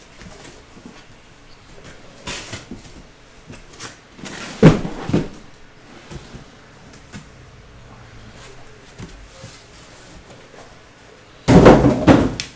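Cardboard trading-card boxes being handled: scattered knocks as shrink-wrapped hobby boxes are taken out of a cardboard case, with a sharp thud about five seconds in and a longer, loud burst of knocking and rustling near the end as the boxes are set down.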